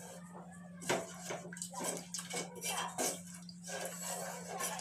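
Wooden spatula stirring a thick mix of ground urad dal and cold water in an aluminium pot: wet, sloshing strokes at an uneven pace, worked steadily so the flour does not form lumps.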